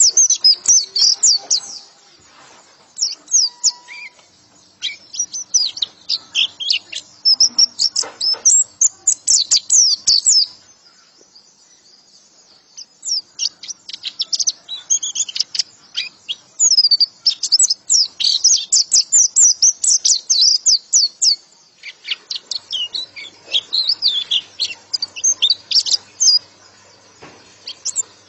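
White-eye (pleci) song: runs of rapid, high-pitched twittering notes, broken by a few short pauses.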